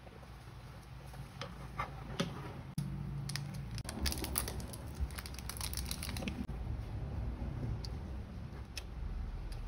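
Close-up handling of a plastic pencil case and accessory packaging: a few light clicks and taps, then about two seconds of dense plastic crinkling and crackling around the middle, over a low steady hum.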